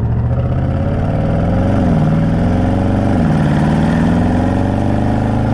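Audi RS6 Avant's twin-turbo V8 accelerating hard, its pitch climbing through the gears with two quick upshifts, about two and three seconds in.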